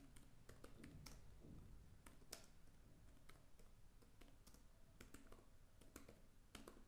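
Faint computer keyboard typing: irregular key clicks as a line of text is typed.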